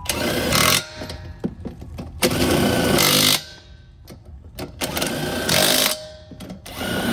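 Impact wrench on tractor wheel nuts, running in bursts of about a second with gaps of a second or more, three times and a fourth starting near the end.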